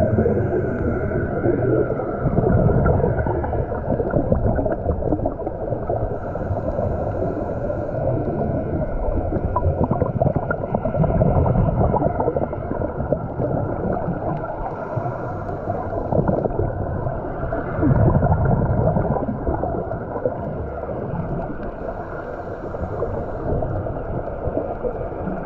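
Muffled underwater sound of scuba breathing: a regulator's breaths and bursts of exhaled bubbles gurgle and swell every three to four seconds over a steady low rumble.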